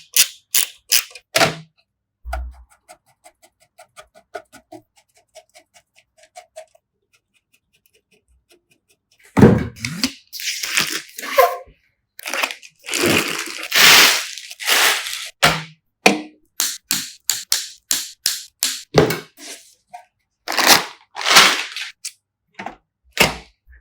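Sharp plastic-and-metal clicks, knocks and short scrapes of computer parts being handled and fitted together. The clicks come thick and fast, with faint ticking and a brief pause in the first third.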